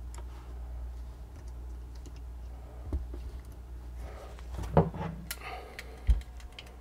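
Small metal parts clicking and scraping as a Marlin 1895's coiled hammer spring and spring plate are compressed by hand and worked into place. A louder metallic clack comes near five seconds in, then a dull thump about a second later.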